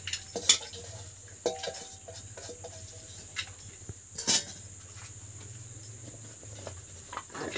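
Crickets trilling steadily in the background, with a few sharp clinks of steel and aluminium cookware as dry dal is tipped into a pressure cooker; the loudest clink comes about four seconds in.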